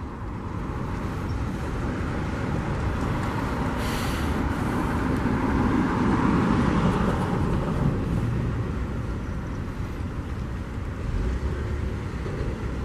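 Freight train cars (covered hoppers and boxcars) rolling slowly past, with a steady rumble and clatter of steel wheels on rail that builds to its loudest about halfway through. A brief hiss is heard about four seconds in.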